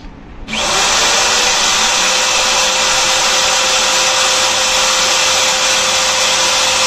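Black+Decker corded drill, set to plain (non-hammer) drilling, starting up about half a second in and then running steadily at full speed with a steady whine, its bit pressed against the old trunk's sheet-metal floor. The bit seems not to be cutting into the metal.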